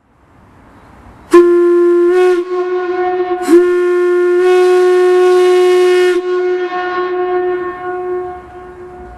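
A steam whistle blown on compressed air sounds a loud, steady single-pitched note in two blasts: a short one about a second in and a longer one of nearly three seconds. After the second blast is cut off, the tone lingers and fades away as it echoes.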